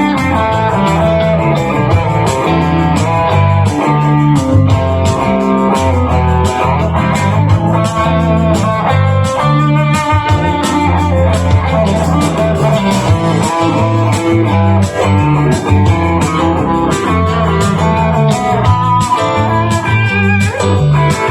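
Electric guitar with Lace Sensor gold pickups, driven through a Missing Link Highway 41 distortion pedal, playing blues-rock lead over a backing track with bass and drums.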